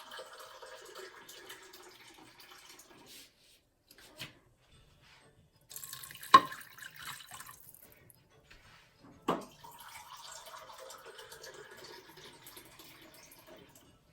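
Water running from a kitchen tap into a glass in spells, with a few sharp knocks in between, the loudest about six seconds in.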